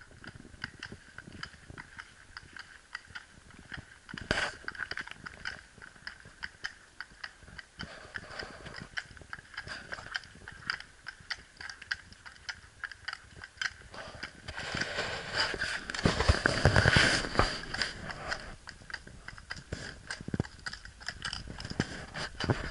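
A horse's hooves clip-clopping at a walk on a paved lane, a steady series of sharp clicks. About two-thirds of the way through, a louder, rough noise swells for about three seconds over the hoofbeats.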